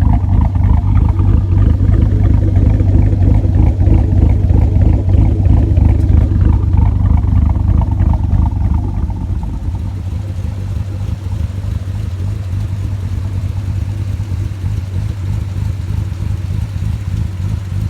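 Cammed fifth-generation Chevrolet Camaro V8 idling through a DD Customs 3-inch valved cat-back exhaust with a loud, choppy lope from its Comp Cams camshaft. The sound drops somewhat in level about nine seconds in.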